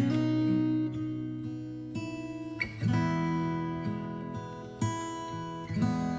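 Background music: acoustic guitar strumming chords that change every second or so.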